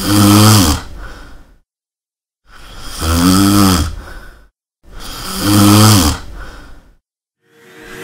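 A person snoring loudly: three long snores with a low buzzing pitch, each trailing off, separated by dead silence. Music begins to come in near the end.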